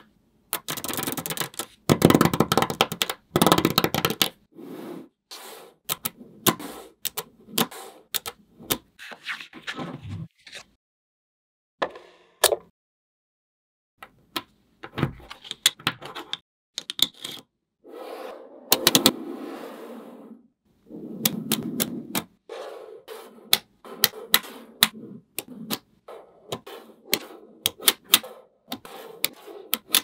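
Small magnetic balls clicking and rattling as they are snapped together, pressed and shaped by hand, in irregular bursts of sharp clicks with a couple of short pauses near the middle.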